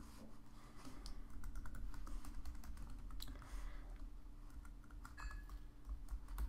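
Computer keyboard typing: keys tapped in quick irregular runs as a password is entered, over a low steady hum.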